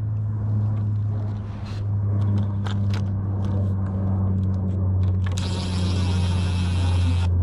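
Small clicks and scrapes of boards and a screw being handled, then, about five seconds in, a Ryobi cordless impact driver starts driving a Phillips-head screw into a wooden fence board with a high, dense mechanical whir. A steady low hum runs underneath throughout.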